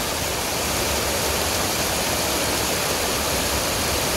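Fast, shallow rocky stream rushing in white water over stones, a steady full rush of water.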